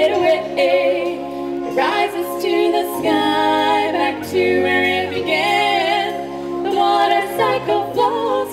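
Women singing a children's song together over musical accompaniment with held bass notes that change every second or so.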